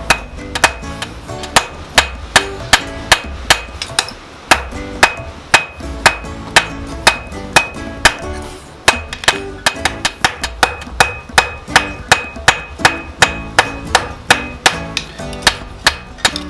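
Blacksmith's hammer striking steel on an anvil while forging a kukri blade. Steady strokes come about two to three a second, each with a ringing note, with short pauses about four and eight seconds in.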